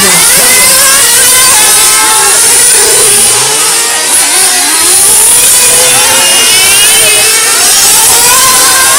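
Several 1/8-scale nitro RC cars' small two-stroke glow engines revving up and down together. Their loud, high-pitched whines overlap and rise and fall with the throttle.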